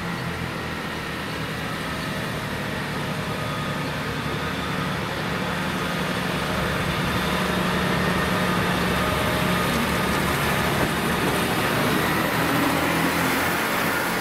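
Class 158 diesel multiple unit's underfloor diesel engines running steadily as it pulls away from the station. The drone grows louder as the unit approaches, and wheel-on-rail noise builds near the end as the cars pass close by.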